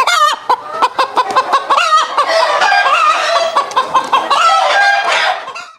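Domestic hens clucking: a rapid, busy run of short clucks that fades out near the end.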